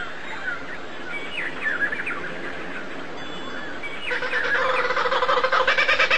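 Birds chirping with quick, short sweeping notes. About four seconds in, a louder bird call with a rapid pulsing beat starts and grows steadily louder.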